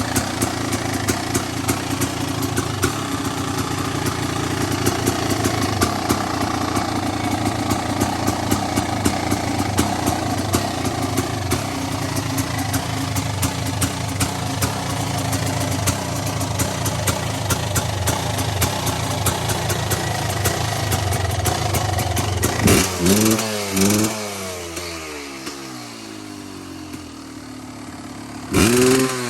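Kawasaki KX500's single-cylinder two-stroke engine idling with a rapid, steady popping as it warms up after a cold start, then the throttle is blipped twice about 23 seconds in, and once more near the end, each rev rising and falling quickly.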